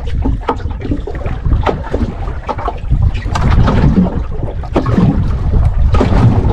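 Wind buffeting the microphone over water splashing and slapping against a small boat at sea: a loud, uneven low rumble with irregular splashes.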